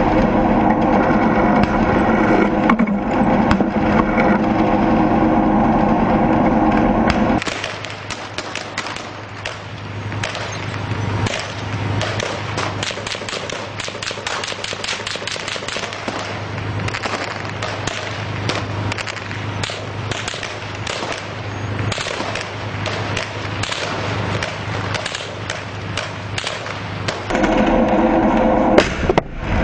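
A tank's engine running loud and steady. About seven seconds in, it gives way to a long stretch of rapid gunfire, many sharp cracks over a low hum. Near the end the tank engine returns.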